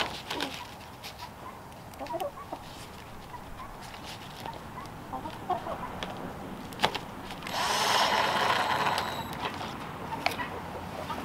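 Cordless drill running for about two seconds near the end with a steady high whine, driving a small screw to fasten the tarp's edge to the wooden frame. A sharp click comes just before it, and fowl cluck and chirp faintly throughout.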